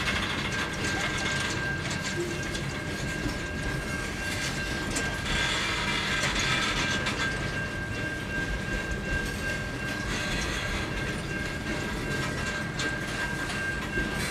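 Freight train wagons rolling past: a steady rumble of steel wheels on rail with clicks at the rail joints, over a thin, steady high-pitched whine.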